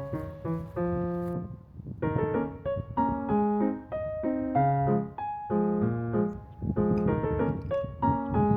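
Light background music led by piano, a steady run of short melodic notes over chords, with a brief lull about two seconds in.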